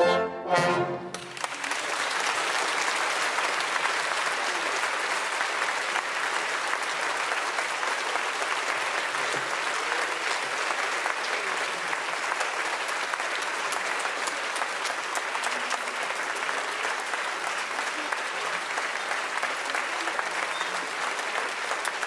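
An orchestra's final chords end about a second in, then a theatre audience applauds steadily, a dense even clapping.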